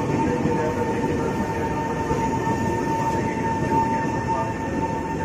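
KRL commuter electric train running slowly alongside the platform: a steady rumble with a constant high whine over it.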